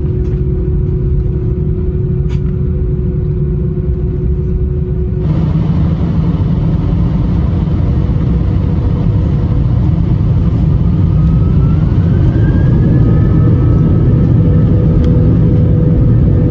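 Airbus A319 cabin noise while taxiing: a steady low engine rumble and hum heard from inside the cabin. The sound shifts abruptly about five seconds in. In the second half a rising whine comes in and the overall level slowly grows, as the engines spool up.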